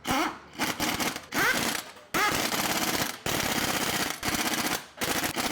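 Pneumatic impact wrench rattling in about five short bursts with brief pauses between them, running wheel nuts onto a car's hub.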